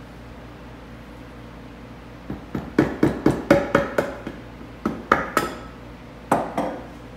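Sharp wooden knocks from a dry-fitted chair leg being worked loose by hand from its mortise in the chair seat. About fourteen quick knocks come in three bunches, starting about two seconds in.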